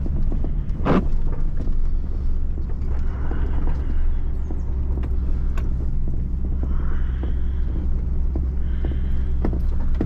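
Pickup truck driving over rough grass and dirt, heard from inside the cab: a steady low engine and road rumble with scattered light knocks and rattles.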